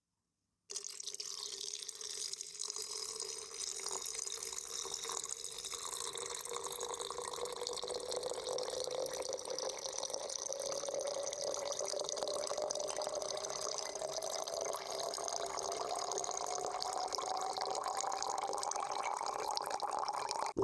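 A stream of water running into a container and filling it. The sound starts suddenly a moment in, and its hollow resonant pitch rises steadily as the water level climbs. It cuts off abruptly at the end.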